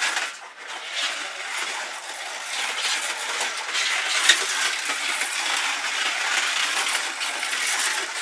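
Slot cars racing round a plastic track, giving a steady rattling clatter made of many fine clicks, with one sharper click a little after four seconds in.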